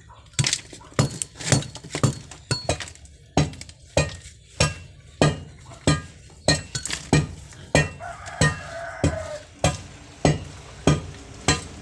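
A metal hand tool striking and scraping cement or concrete in a steady rhythm, a little under two strokes a second, during drainage concreting work.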